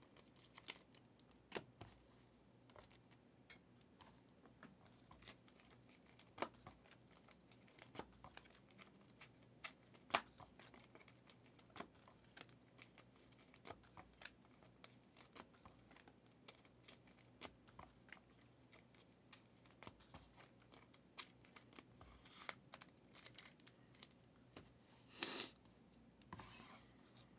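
Near silence broken by faint, scattered clicks and rustles of trading cards and their packaging being handled, with a longer rustle near the end.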